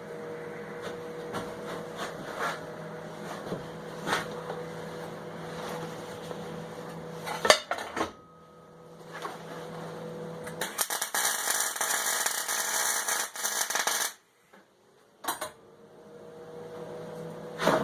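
An electric power tool's motor runs steadily on metalwork, with scattered knocks. About ten seconds in comes a few-second stretch of loud, hissing metal-on-tool contact, then the tool stops and spins up again near the end.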